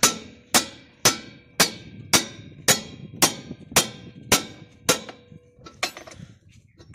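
Hammer blows on the handle of a ring spanner fitted to a tractor wheel nut: about ten sharp metallic strikes, roughly two a second, each ringing briefly, with a weaker knock near the end. They are hammering a very tight wheel nut loose.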